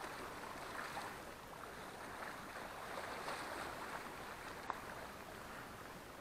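Faint sea ambience: small waves lapping at the shore with a light hiss of wind, and one short click a little under five seconds in.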